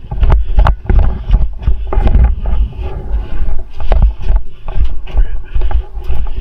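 Rhythmic thuds and clicks about two to three a second over a heavy low rumble, the wind and handling noise of a body-worn camera on a player moving on foot.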